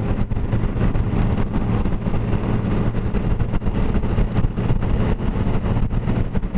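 A 2012 Honda Goldwing's flat-six engine running steadily at highway cruising speed. Wind and road noise buffet the microphone throughout.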